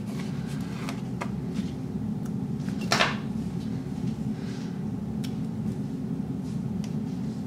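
Light handling sounds from a paper sticker sheet and metal tweezers as a planner sticker is placed: a few soft clicks and one brief paper crackle about three seconds in, over a steady low hum.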